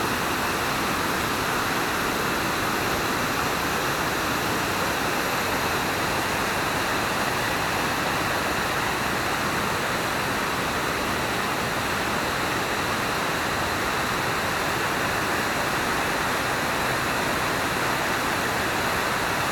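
Water of a series of waterfall cascades pouring steadily, a continuous dense rushing with no breaks.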